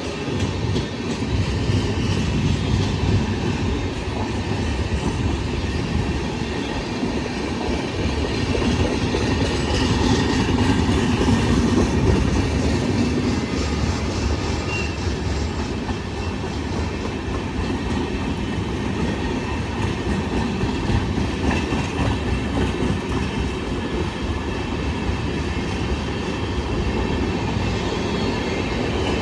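Passenger train running past, its wheels clattering over the rail joints in a steady stream, a little louder around ten to twelve seconds in.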